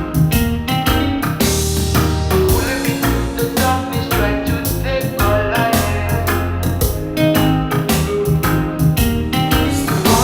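Music: a song's instrumental break with keyboard, heavy bass and a steady drum beat.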